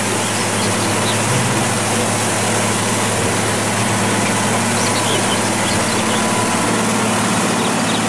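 Concrete mixer truck's diesel engine running steadily, with a heavy stream of water gushing out of the drum's discharge chute and splashing onto the pavement.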